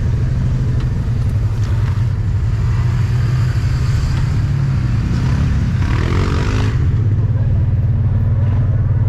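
Off-road vehicle engine running steadily with a constant low drone while riding.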